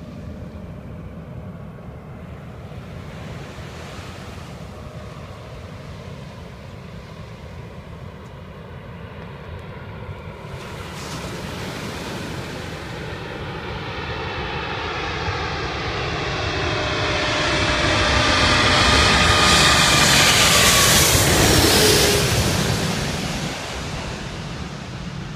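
Boeing 777-300 airliner on final approach: the rumble and whine of its turbofan engines grow louder over about ten seconds, peak as it passes low overhead, then fall away, the whine sliding down in pitch as it goes by.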